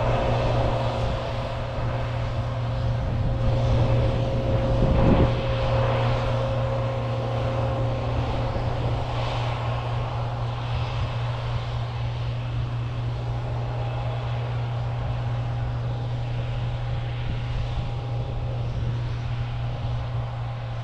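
Combine harvester running steadily as it harvests, a constant engine drone with a thin steady whine over it. It swells briefly louder about five seconds in.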